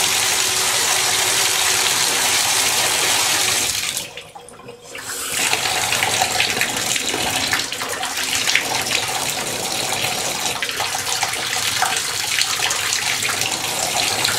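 Water running hard from a Moen bathtub faucet's spout, dropping away for about a second around four seconds in and then running again. Full flow is back after the faucet's limed-up anti-scald valve piston was cleaned: "good as new".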